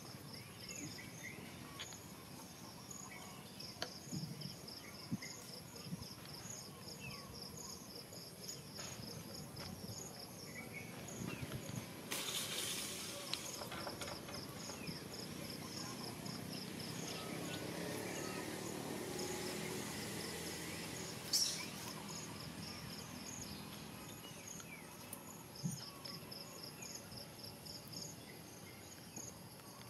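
Insects calling in the background: a fast, even run of high chirps over a steady high buzz. The chirping drops out for several seconds in the middle while something rustles close by, and one sharp click stands out near the end of that stretch.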